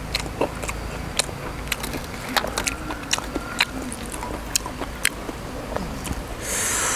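Close-up mouth sounds of a person chewing fried battered meatball slices, with many sharp wet clicks and smacks. A short hissing noise comes near the end.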